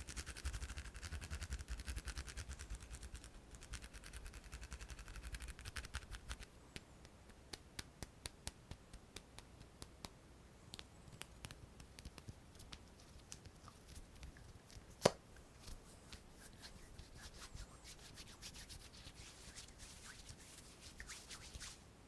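Close-miked ASMR hand sounds: fast, dense rubbing for the first six seconds or so, then scattered light taps and clicks, with one sharp click about fifteen seconds in. Softer rubbing returns near the end.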